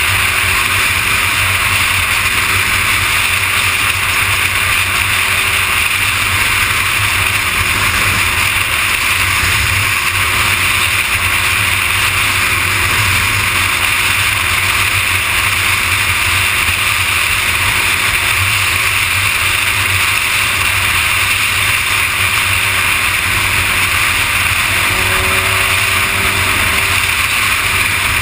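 Steady wind rush on the microphone and road noise of a Kawasaki ZX-6R sport bike cruising at freeway speed, with the bike's inline-four engine a faint steady hum underneath. A brief rising tone comes in about 25 seconds in.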